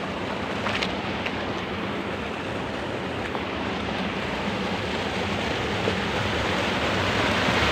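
Turbulent water rushing and churning steadily, growing gradually louder toward the end.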